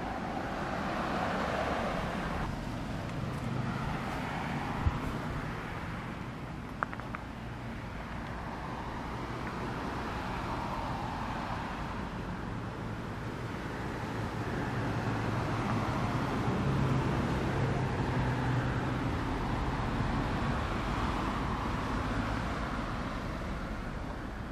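Cars passing on a road, their tyre and engine noise swelling and fading several times over a steady traffic background. Two brief sharp clicks stand out about five and seven seconds in.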